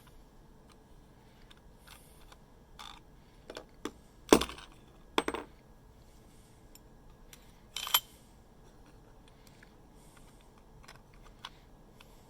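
Sharp metallic clicks and clinks as a Colt M1911 CO2 airsoft pistol is handled while its CO2 cartridge is swapped. The loudest clink comes about four seconds in, a quick pair a second later, and another near eight seconds, with a few fainter ticks between.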